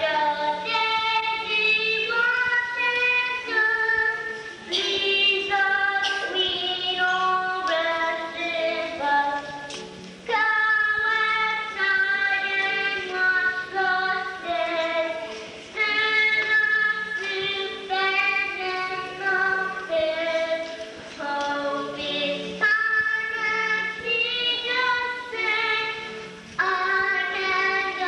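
A young girl singing a slow solo song, holding each note for a moment, with short pauses for breath between phrases.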